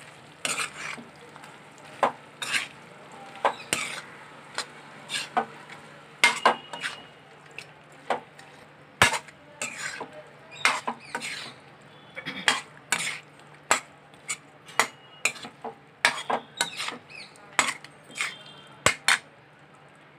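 A steel spoon stirring and scraping chicken pieces and chilli paste around a steel kadai, with irregular clinks and scrapes of the spoon against the pan, about one or two a second, over a low steady hum.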